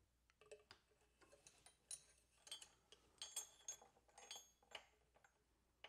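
Faint, scattered metallic clicks and clinks as a push rod is fitted down into the overhead-valve cylinder head of a Briggs & Stratton Intek engine and seated on its tappet.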